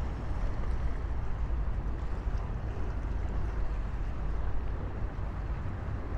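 Wind buffeting the microphone as a steady low rumble, with a fainter hiss of outdoor noise above it.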